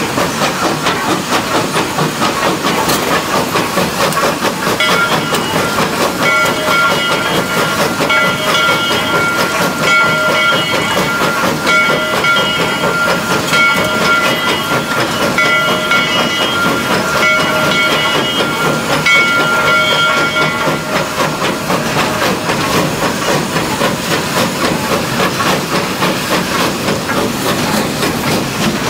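Steam locomotive running under steam, heard from its cab: steady chuffing exhaust and hiss with a fast even beat. From about five seconds in to about twenty seconds a high ringing tone sounds over it, its upper notes pulsing about every two seconds.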